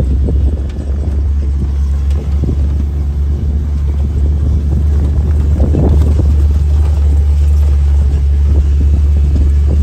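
Vehicle engine running steadily: a constant low drone with some rattle and noise over it.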